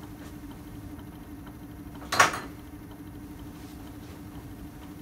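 A single short, sharp knock about two seconds in, as of a hard object being handled or set down, over a steady low hum.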